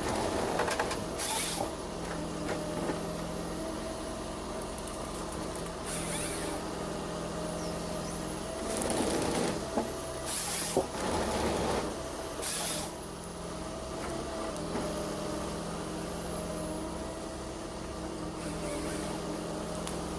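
A heavy machine's engine running steadily, broken by several short hisses of released air.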